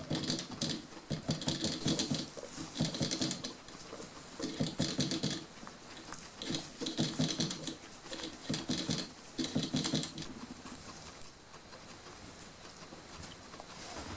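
Guinea pigs moving about in their cage, in repeated short bursts of crackly rustling and scratching about once a second. The bursts die down to a faint rustle after about ten seconds.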